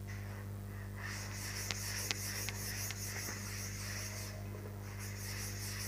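Blackboard being wiped with a duster: stroke after stroke of rubbing, starting about a second in, with a short pause a little after four seconds before it picks up again. A steady low hum runs underneath.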